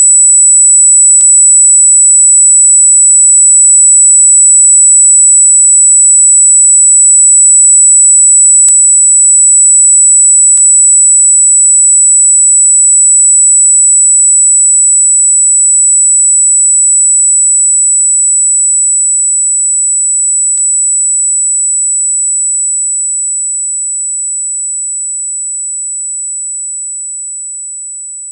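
Electronically generated high-pitched steady tone. It wavers slightly at first, then settles into a pure single tone that fades out gradually over the second half, with a few faint clicks along the way.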